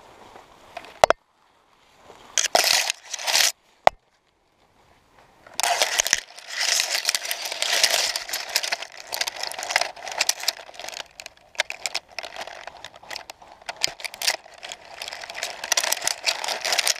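Pine branches and needles rustling and crackling against the camera as the wearer shifts among them: a few sharp clicks and short bursts at first, then steady crackly rustling with many small clicks from about five seconds in.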